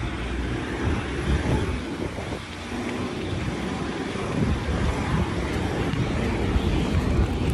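Steady city street traffic noise, with an irregular low rumble on a handheld phone's microphone.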